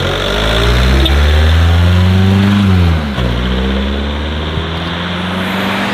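Car engine revving up steadily for nearly three seconds, then dropping back sharply and running on at a lower, steady pitch.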